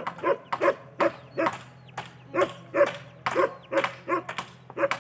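A dog barking over and over in short, loud barks, about three a second.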